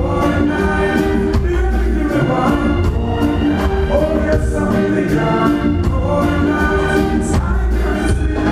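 Live reggae-dancehall band playing with a lead vocal over it, loud, with a steady drum beat and heavy bass.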